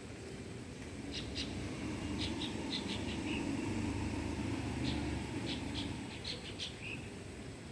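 Small birds chirping in short, irregular calls over a low rumble that swells through the middle and fades.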